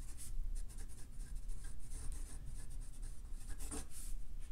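Steel Omniflex nib of a Conklin Duragraph fountain pen scratching across lined paper as cursive words are written, in quick, irregular pen strokes.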